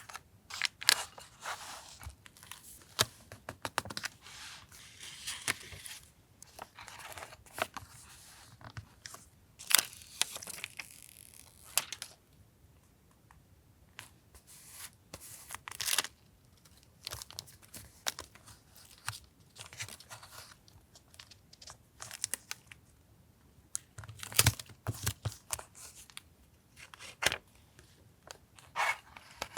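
Paper being handled for a journal collage: irregular rustles and sharp ticks, some short bursts of crinkling, with a quieter pause about halfway through.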